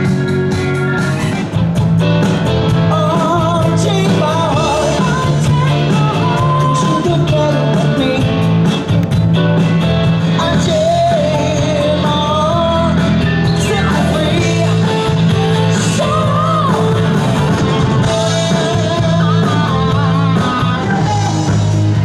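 Live rock band playing amplified music: a woman singing lead over electric guitar, bass guitar and drums.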